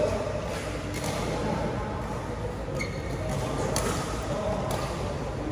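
Badminton hall ambience: a few sharp shuttlecock hits from rackets on neighbouring courts, over the steady background noise of a large hall.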